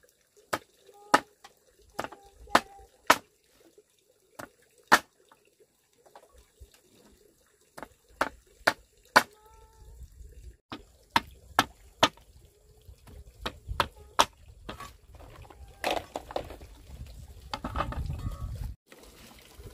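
A series of sharp chopping knocks, struck one at a time about one to two a second, that thin out in the second half as a rustling handling noise builds near the end.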